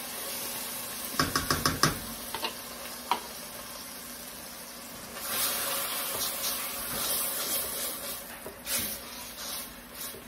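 A spatula knocks in a quick run of about six strokes against a plastic container and saucepan as tomato extract is scooped out. About five seconds in, the paste starts sizzling in hot oil in a stainless steel saucepan as it is stirred.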